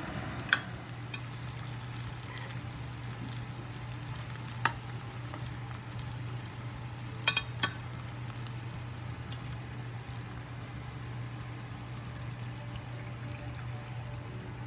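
Food frying in a pan with a steady sizzle, and a few sharp clinks of a utensil against the pan, one about half a second in, one near the middle and two close together about halfway through.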